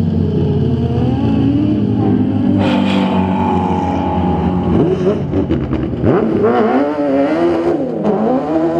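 Autocross buggies of the 1600 cc class racing on a dirt track, their engines revving up and down. From about halfway, several engine notes overlap and waver quickly in pitch as two buggies come through a bend close by.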